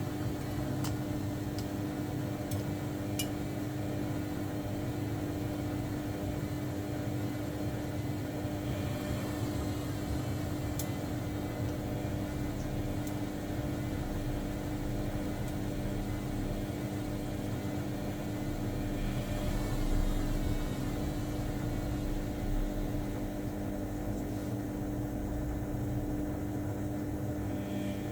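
Samsung washing machine running with a steady motor hum, with a few faint light ticks.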